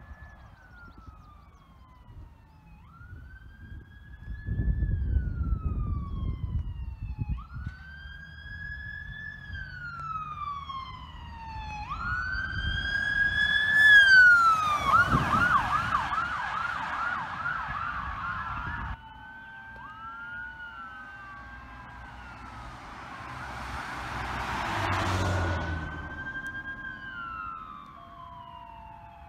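Electronic siren on a red fire police pickup wailing, rising and falling about every four seconds and getting louder as the truck approaches. As it passes about 14 seconds in, the siren switches to a fast yelp for a few seconds. After a sudden cut, another emergency-vehicle siren wails as it approaches, with road noise of a passing vehicle swelling near 25 seconds.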